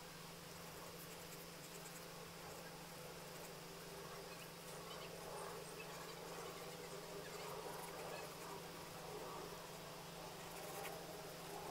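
Graphite pencil scratching on sketchbook paper in short sketching strokes, faint at first and more audible from about halfway through, over a steady low electrical hum.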